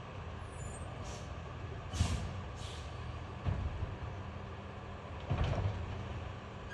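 A large truck running further up the street: a steady low engine rumble, with three short hisses of air about one, two and two and a half seconds in, and a couple of dull thumps after that.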